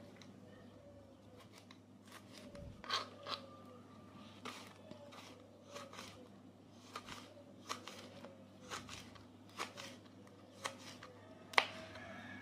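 Kitchen knife slicing a large red chilli on a plastic cutting board: a series of short, irregular blade taps against the board, roughly one a second, the sharpest one near the end.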